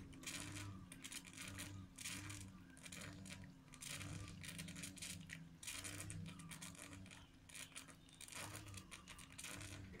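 Small bamboo tabletop fountain running: water trickling faintly from a bamboo spout into a bamboo tube and dish, with a faint steady low hum underneath.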